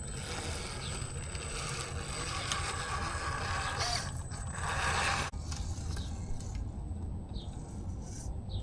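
Axial Capra RC rock crawler driving over the trail: the drivetrain gears and motor run with a steady low hum while the tyres scrape and grind over rough ground. A louder stretch of scraping about five seconds in cuts off suddenly, and the sound is quieter after it.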